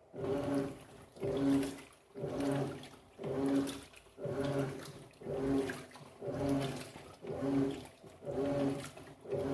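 Electrolux LF10 top-loading washing machine agitating: the motor hums in pulses about once a second as the agitator swings back and forth, with water sloshing in the tub.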